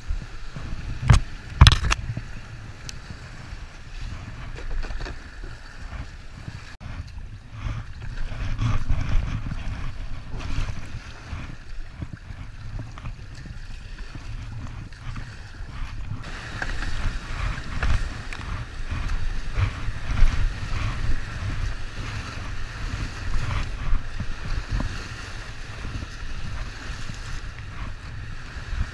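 Flooded river rushing and splashing around an inflatable kayak, with low rumbling and knocking of water against the hull. Two sharp knocks near the start come from pushing through overhanging branches. About halfway through, the hiss of rapids grows louder.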